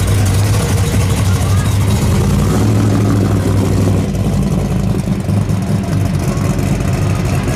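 V8 engine of a 1955 Chevrolet 210 restomod running with a steady low rumble as the car rolls past at walking pace, getting a little quieter about halfway through as it pulls away.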